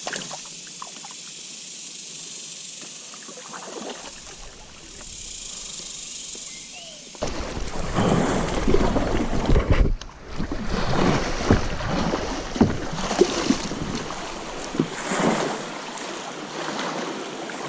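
A steady high insect drone, then about seven seconds in the sudden loud rush and splash of fast-moving water around a kayak, with a low rumble, as it runs through moving current.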